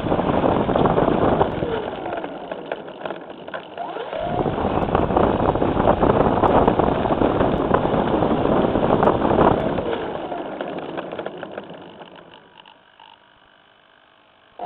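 Radio-controlled model airplane's motor and propeller, heard from the onboard camera, throttled up and down while taxiing on the runway. A short surge comes right at the start, then a longer spell of full power from about four seconds in with heavy propeller wash on the microphone. After that the whine glides down and fades almost to quiet near the end.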